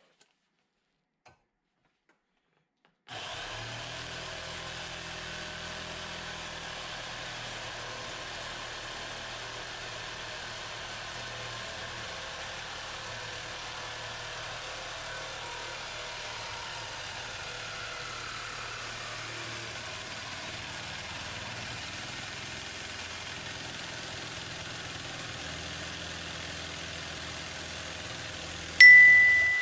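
Corded reciprocating saw cutting through a piece of exhaust pipe clamped in a bench vise; it starts about three seconds in and runs steadily. Near the end one sharp metallic clang rings on and fades.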